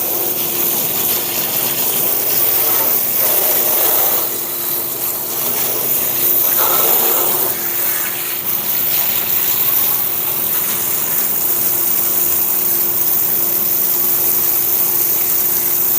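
Water pump running with a steady hum while a hose nozzle sprays water hard into a furnace cabinet, a continuous hiss of spray that shifts in tone a few times as the stream moves.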